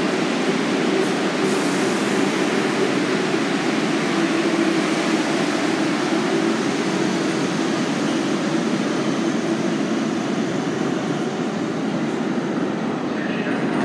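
R62A subway train running along the station platform, a steady dense rumble of wheels and traction that slowly eases off toward the end as the train pulls out.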